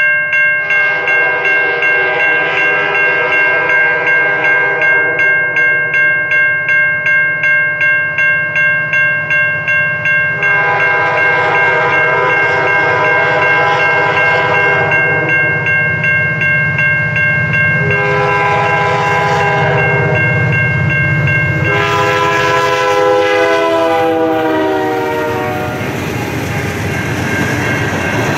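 A CN diesel freight locomotive's air horn sounds four blasts, long, long, shorter, long, and the last one drops in pitch as the locomotive passes. A bell rings steadily under the first three. Near the end, empty iron-ore hopper cars rumble and clatter past on the rails.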